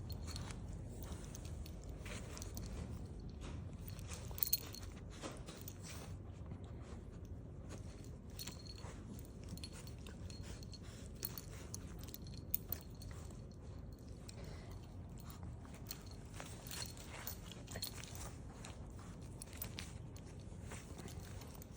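Two small dogs mouthing and licking each other at close range: irregular wet chewing and smacking sounds with scattered clicks over a low rumble.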